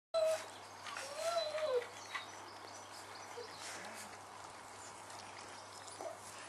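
Four-week-old Dalmatian puppies whining: a short high whine near the start and a longer one about a second in that rises and then falls in pitch.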